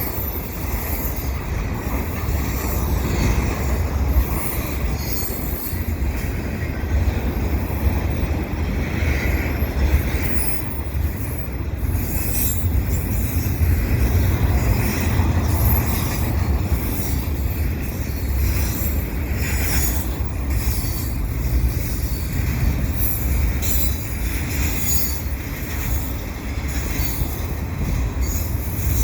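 Double-stack container train rolling past at speed: a steady heavy rumble of the cars, with short high-pitched wheel squeals and screeches that come and go.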